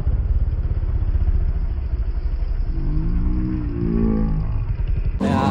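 Yamaha R15 V3's single-cylinder engine running loudly through an aftermarket silencer with the dB killer removed, as a fast, even stream of exhaust pulses. Two short rising-and-falling tones come about three to four seconds in.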